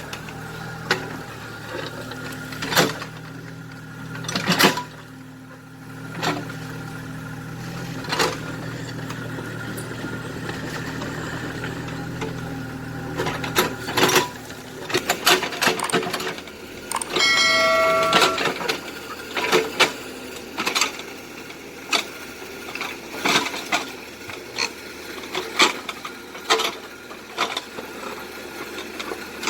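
Small excavator working: a motor hum for the first dozen seconds, then irregular clicks and knocks, with a short high whine about two-thirds of the way through.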